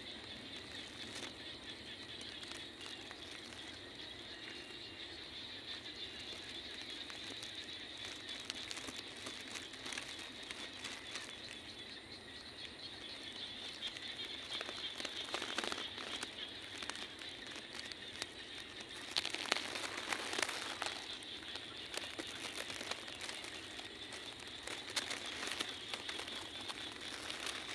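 A steady, high-pitched trill of night insects, with soft, irregular crackling and crinkling close by that gets louder in two spells past the middle.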